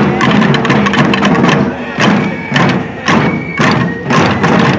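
A marching drum corps playing wooden-shelled drums with sticks in unison, loud rapid strokes in a repeating rhythm.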